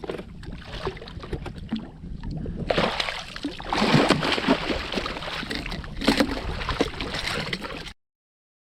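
Water splashing and sloshing at the side of the boat while a big jack is landed, over a steady low rumble; the sound cuts off suddenly near the end.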